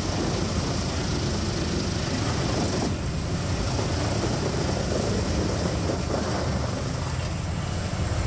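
Large trailer-mounted wood chipper running steadily under load as it chews a whole log fed into its infeed, with its engine drone and the grinding of the wood blended into one continuous noise.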